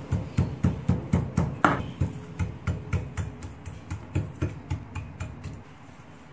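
Chinese cleaver tapping a raw chicken breast on a wooden chopping board to tenderise it: steady thuds about four a second, growing softer toward the end.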